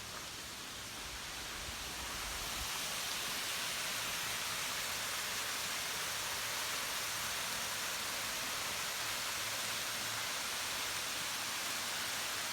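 Waterfall rushing, a steady hiss of falling water that swells over the first couple of seconds and then holds even.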